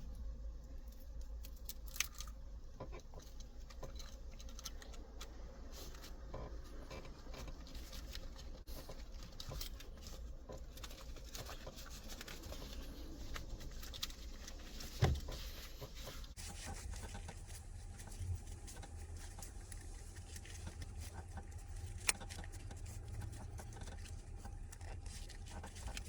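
Hands fitting plastic trim and a gear-lever gaiter around a gear knob: soft rustling with scattered light plastic clicks and a few sharper clicks, the loudest a little past halfway. A faint low hum comes in about two-thirds through.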